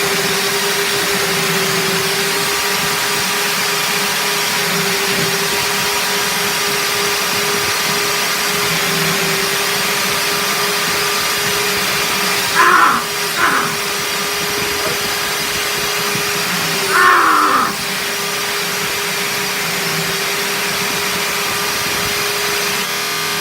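Electric belt sanders running with a steady motor hum. Twice, about halfway through and again a few seconds later, there is a brief louder scraping while the motor pitch sags, as the belt is pressed on and bogs down.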